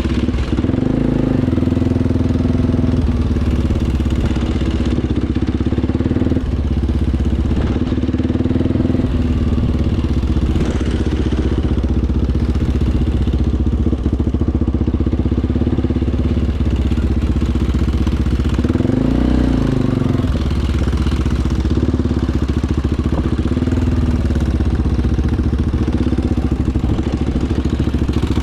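ATV engine running steadily at a low, even speed, with brief rises in engine speed about a second in and again around nineteen seconds in.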